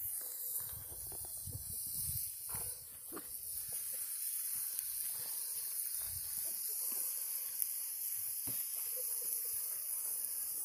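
Campfire with a cast-iron skillet of food cooking on it: a steady high hiss with a few scattered crackles and pops.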